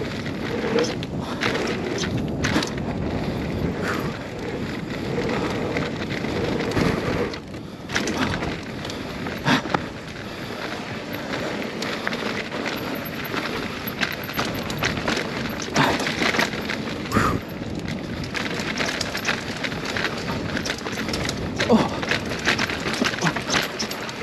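Full-suspension mountain bike, a 2021 Scott Spark 970, riding fast down a dirt bike-park trail: a steady rush of tyres on dirt, broken every second or two by sharp clatters and knocks from the bike over bumps.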